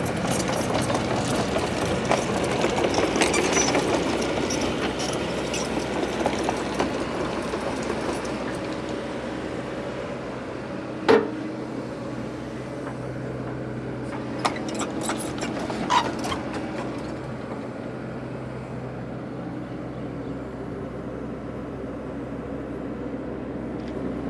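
Heavy diesel machine engine running steadily under work. Over it come clusters of cracking and knocking, busiest in the first several seconds, with a few sharp knocks in the middle.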